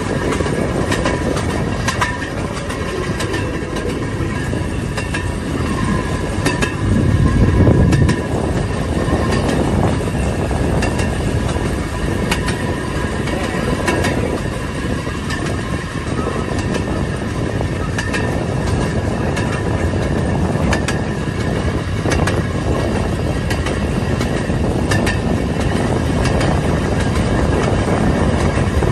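Rail speeder running along narrow-gauge track: a steady rumble of motor and wheels with irregular sharp clicks as the wheels cross rail joints, and a thin steady whine over it. The low rumble swells briefly about seven seconds in.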